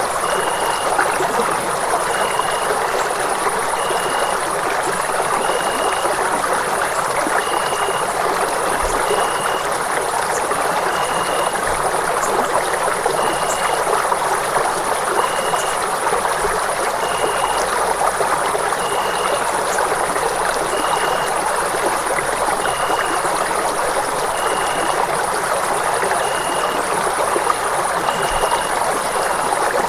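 Running water flowing steadily, an even rushing sound with no change, with a faint short high tone repeating about every two seconds.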